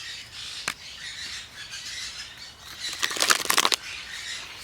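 A single sharp click, then about two seconds later a rapid fluttering run of quick clicks lasting just under a second, over faint high bird twittering.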